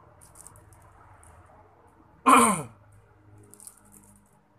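A man's short voiced exclamation, sliding steeply down in pitch, about halfway through. Faint crinkling of plastic packaging as the sunglasses are handled comes before and after it.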